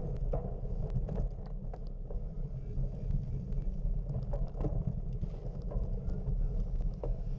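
Wind buffeting the microphone as a steady low rumble, with scattered short clicks and knocks over it.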